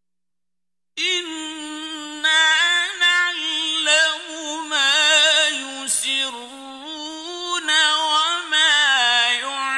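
Qur'an recitation in the melodic mujawwad style: a single male voice chanting with long held notes, wavering ornaments and short pauses. It starts about a second in, after silence.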